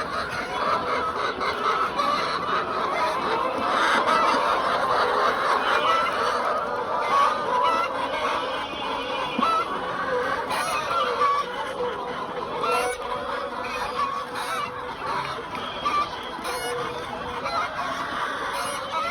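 A large flock of chickens clucking and calling over one another without pause.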